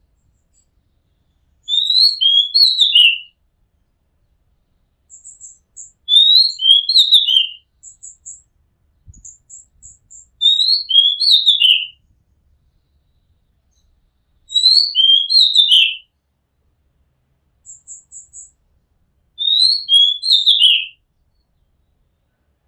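Oriental magpie-robin singing: the same short phrase of whistled, downward-sliding notes repeated five times, about every four to five seconds, with faint thin high chirps between the phrases.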